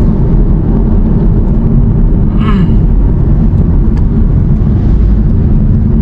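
Steady low road and tyre rumble inside the cabin of a moving VinFast electric taxi, with no engine note. A short voice fragment is heard about two and a half seconds in.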